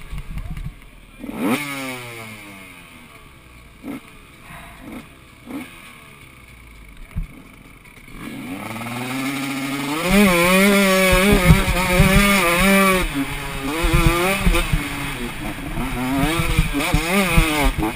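Dirt bike engine idling with a few short throttle blips, then revving up about halfway through and pulling away hard, the revs rising and falling as it accelerates along the track.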